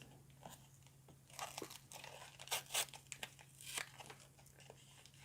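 Foil Pokémon trading card booster packs and cards being handled: faint, scattered crinkling and rustling with light taps.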